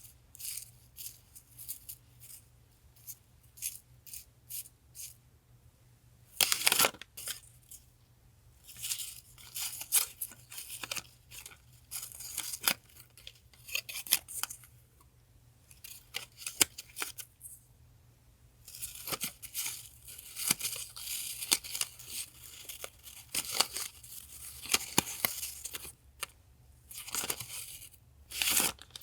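Sheets of paper die-cuts being handled, shuffled and slid over one another, in short bursts of dry rustling with a longer continuous stretch past the middle.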